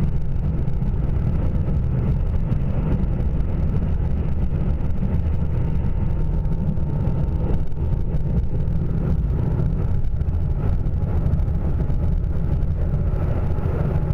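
Steady running noise inside the cabin of a Nanki limited-express diesel railcar travelling at speed, mostly a low rumble.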